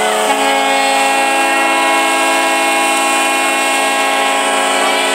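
A horn sounding one long, steady chord of several tones at once, its lowest note stepping up slightly just after the start.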